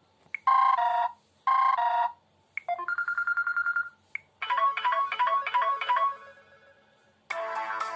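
Preloaded Samsung Galaxy Ace alert tones played one after another: a two-note electronic chime sounds twice, then a fast-repeating beep, then a short repeated melody that fades out. A fuller ringtone melody starts near the end. Each tone is preceded by a tiny blip.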